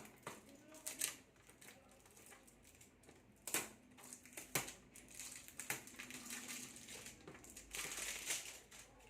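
Plastic packaging being handled and opened by hand: crinkling and rustling, with a few sharp taps and clicks.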